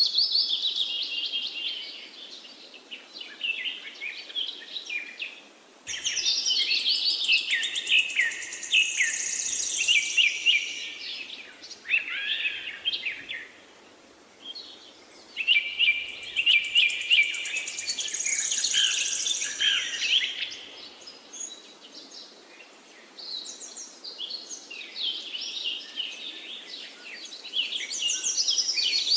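Birds chirping and singing in quick, overlapping phrases that come and go in several spells, quieter for a few seconds between them.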